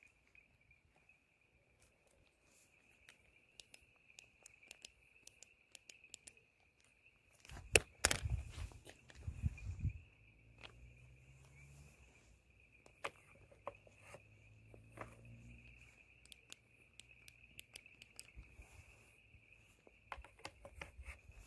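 Crickets trilling in a steady high-pitched chorus, with scattered clicks and a cluster of louder knocks and rustling close to the microphone around eight seconds in.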